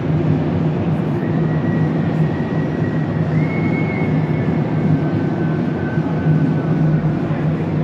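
Steady low hum and rumble of a large, busy indoor hall, with a faint thin high whine that wavers and slowly drifts lower.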